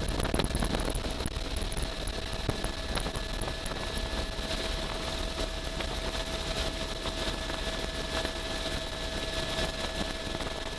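Helicopter in flight heard from on board: a steady engine and rotor drone with a constant whine held at an unchanging pitch.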